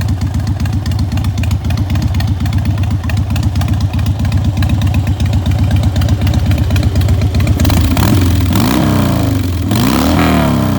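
Harley-Davidson motorcycle engine running with a steady, loud pulsing rumble, then revved near the end, its pitch rising and falling. It sounds pretty good: the engine runs well.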